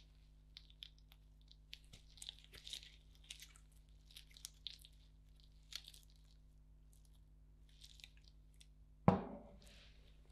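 Soft, scattered crunching and scraping as rolled ice cream and its cookie toppings are handled, then one sharp knock about nine seconds in.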